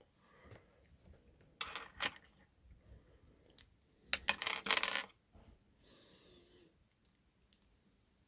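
Small metal connector parts clinking and rattling as they are handled: a short clatter about two seconds in and a louder, denser run of clinks around the middle.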